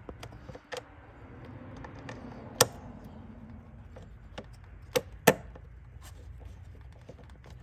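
Scattered sharp clicks and taps of a screwdriver and screw against the metal fan shroud as a screw is worked into place, the loudest about two and a half and five seconds in, over a low steady hum.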